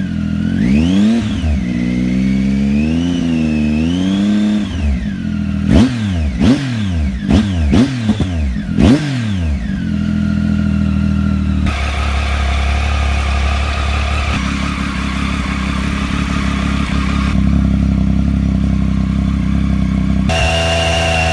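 Triumph Tiger 800 XC's three-cylinder engine, still cold, revved in slow swells and then blipped sharply about six times in quick succession, before settling into a steady idle. It starts revving again near the end.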